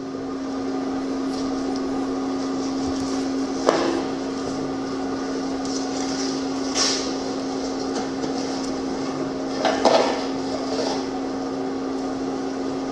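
A steady low hum, like a small motor running, with a few short knocks and clatters over it.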